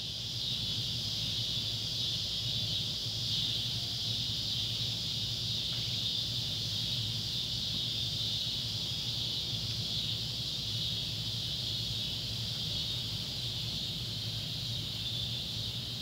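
Cicadas calling in a steady, continuous chorus, Neotibicen pruinosus (scissor grinder) and Neotibicen tibicen (swamp cicada), a high buzzing drone that never breaks.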